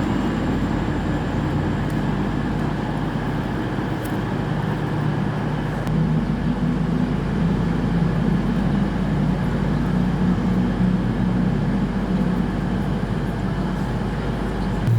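A train at a station running steadily, its engine humming in a low, even note that shifts upward slightly about six seconds in.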